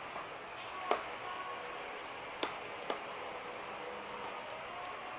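Three short sharp clicks or taps: one about a second in, then two half a second apart around two and a half seconds in, over a steady low hiss.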